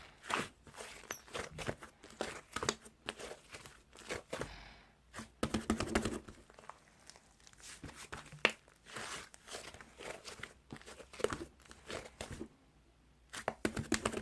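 Stretchy clay slime being stretched and squeezed by hand, giving irregular sticky crackles and clicks.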